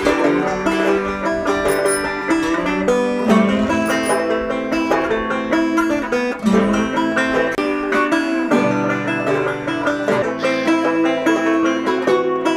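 Background music played on plucked string instruments, a busy tune of many quick notes.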